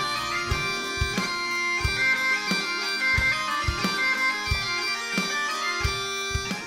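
Bagpipe music: a tune played over the pipes' steady drones, with a low drum beat.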